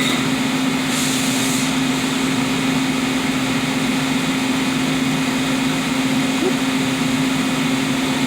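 Brother Speedio CNC machining center running its automatic tool-length touch-off cycle, a steady machine hum with one held tone throughout. A short hiss about a second in.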